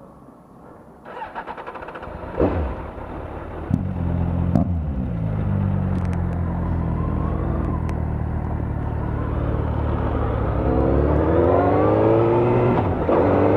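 Suzuki GSX-R750 K3 inline-four motorcycle engine pulling away, with a few knocks in the first seconds. The engine runs steadily at first, then its pitch climbs as it accelerates. Near the end the pitch drops at a gear change and climbs again.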